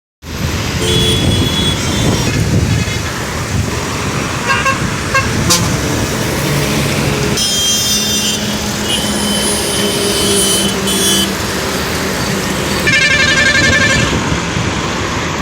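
Truck horns sounding over steady road-traffic noise: several separate honks of different pitch, the loudest and brightest near the end.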